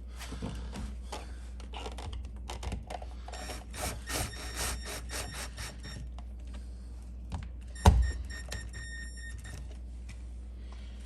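Small clicks and scrapes of a screwdriver and screws as a GFCI outlet is screwed down into its electrical box, with one loud knock about eight seconds in.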